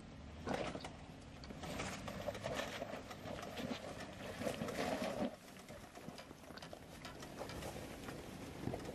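Jeep Wrangler engine running as it crawls up rock ledges, rising in a few short spurts where the tires lose traction, with tires grinding over rock; it fades about five seconds in as the Jeep moves away uphill.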